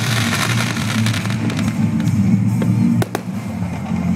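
Aerial fireworks bursting overhead, with a dense crackle from the shells over a steady low rumble. Two sharp bangs come a little after three seconds in.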